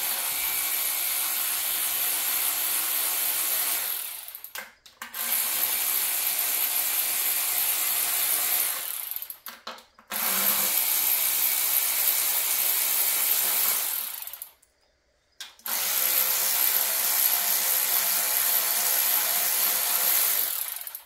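Power ratchet spinning out the bellhousing bolts that join a 904 automatic transmission to the engine. It runs four times, each run lasting about four to five seconds, with short pauses between them.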